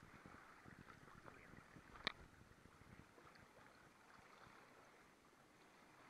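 Faint lapping of lake water close to the microphone, with one sharp click about two seconds in.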